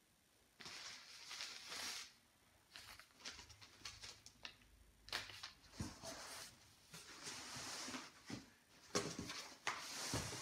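Rustling and crinkling of bags and packaging being handled in a cardboard box as a quilt in its large storage bag is pulled out. It starts about half a second in, comes in uneven bursts and has a few sharp knocks in between.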